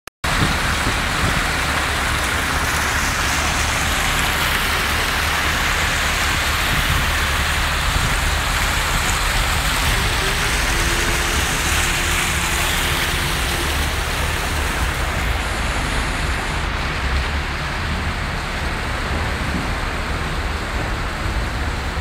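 Steady splashing of fountain water pouring from spouts and jets into stone basins and channels, an even hiss with a low rumble beneath. The highest part of the hiss thins a little after about sixteen seconds.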